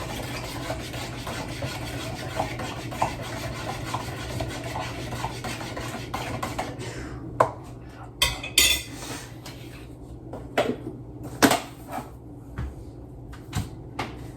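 Dishes and cutlery being handled: continuous scraping and clinking, then separate knocks and clinks, with a short hiss about eight seconds in.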